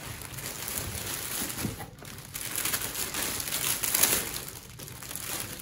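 Clear plastic poly bag crinkling and rustling as it is handled and pulled out of a cardboard box, with a brief lull about two seconds in.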